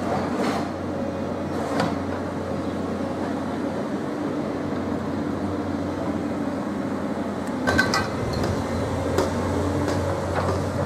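A large machine running with a steady low rumble and hum, with a few sharp knocks about two seconds in and again near eight seconds.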